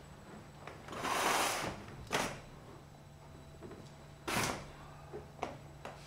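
Grommet-top curtains being drawn shut along a metal rod: a swish of fabric and rings sliding on the rod about a second in, then a few sharp knocks and clicks as the panels are pulled and straightened.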